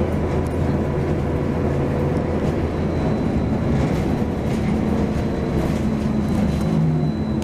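Interior drive noise of a 2005 Neoplan AN460LF dual-mode articulated bus under way, running on its Detroit Diesel Series 60 engine: a steady low drone with road rumble.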